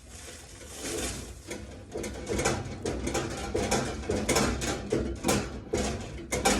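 Irregular clicking and rattling, several knocks a second, of hands working the metal spiral coils and parts inside a vending machine.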